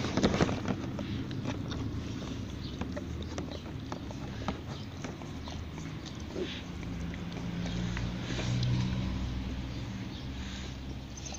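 Dog sniffing and licking at a hand right against the microphone: wet clicks and snuffles. A low hum runs underneath and swells, then fades, about two-thirds of the way through.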